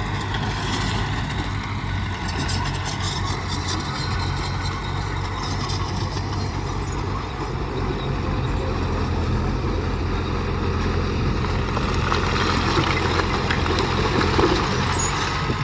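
Heavy diesel engine of road-construction machinery (dump truck or bulldozer) running steadily with a constant low hum.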